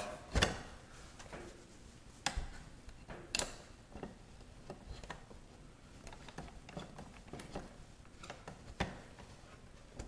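Scattered light clicks, taps and soft scrapes of a hand working a wet towel and fingernail over a refrigerator water-dispenser hose and its plastic housing, scraping off built-up grime. The knocks come at uneven intervals, a few of them sharper than the rest.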